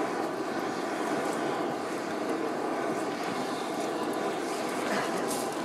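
A steady rushing roar at an even level, without a beat.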